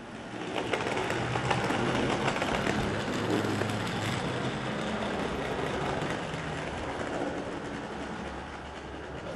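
O-scale model trams running along the track: wheels clattering over the rails with many fine clicks, over a low hum from their electric motors. The sound comes up about half a second in and eases a little near the end as the trams pass.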